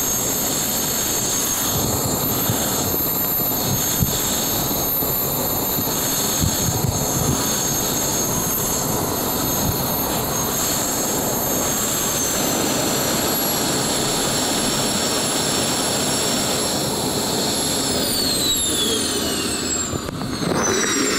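BD-5J's small Microturbo TRS-18 turbojet running with a steady high whine over a broad rush of noise while the jet taxis. Near the end the whine glides steadily down in pitch as the engine spools down.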